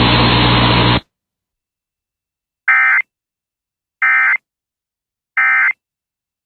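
Three short bursts of Emergency Alert System end-of-message data tones (the SAME 'NNNN' code), each a fraction of a second long and about a second and a half apart, marking the end of the tsunami warning broadcast. Before them, a steady hum in the broadcast audio cuts off about a second in.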